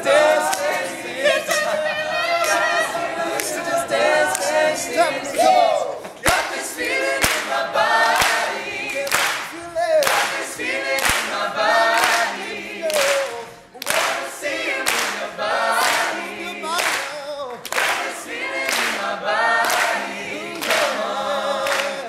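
Men's a cappella group singing a pop song in close harmony, with a sharp clap-like beat about once a second from about six seconds in.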